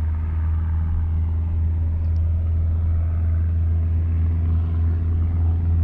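Light piston-engine airplane running steadily, a continuous low drone.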